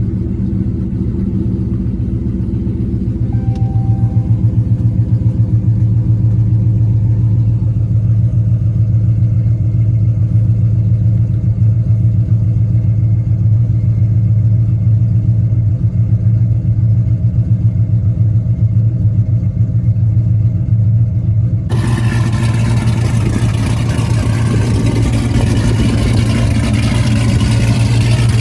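Dodge Charger Hellcat's supercharged 406 cubic inch Hemi V8, with a custom cam, idling with a steady, choppy lope. Near the end the sound suddenly turns much brighter and fuller.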